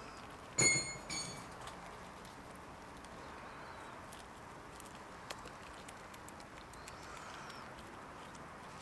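Squirrel gnawing kernels off a cob of white corn, faint scattered clicks of chewing over a steady low hiss. About half a second in come two short, sharp chirps, the first the loudest sound in the stretch.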